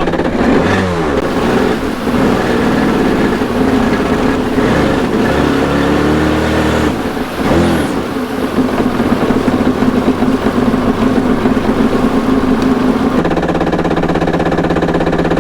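A personal watercraft's electric starter cranking the engine at length without it starting, the pitch wavering in the first half and steadier later. The starter sounds weak and labouring, and the owner blames carburetors that have not been rebuilt.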